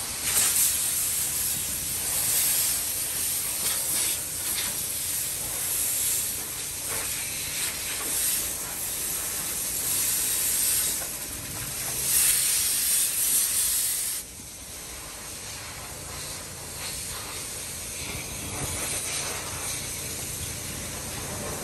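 Loud, steady airy hiss of a car-wash vacuum hose cleaning a car's interior, swelling now and then, then dropping away sharply about two-thirds of the way through to a quieter steady background noise.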